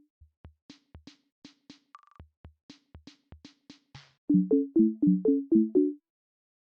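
Synthesized app sound effects from Pok Pok: a string of soft clicks and low taps with a short beep about two seconds in, then a quick, louder run of about seven bright pitched blips, each with two notes, before it stops.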